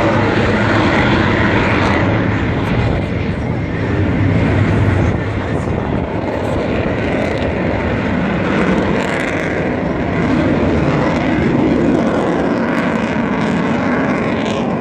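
Eurofighter Typhoon (EF-2000) jet fighter flying its display overhead: a loud, continuous jet roar that swells and eases slightly as it passes.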